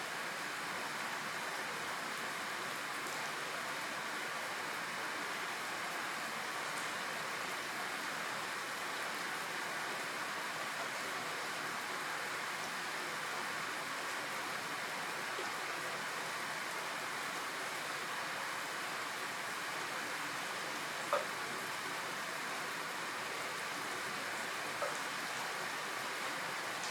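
Steady rain falling, an even hiss with an occasional louder drip, the clearest about 21 seconds in.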